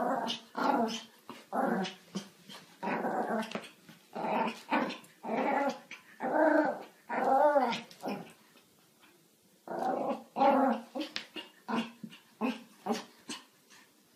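Pomeranian growling playfully in a string of short bursts that waver in pitch while it wriggles on its back, with a pause of over a second partway through and quicker, shorter growls near the end.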